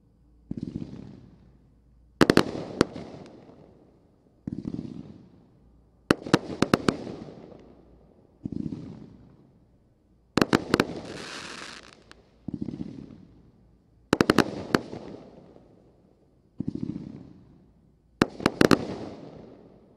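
A 36-shot, 500 g consumer firework cake firing volley after volley: a dull launch thump about every four seconds, each followed under two seconds later by a cluster of sharp, loud bangs as the shells break overhead. This happens five times, and one of the volleys, about halfway through, is followed by a second of hissing.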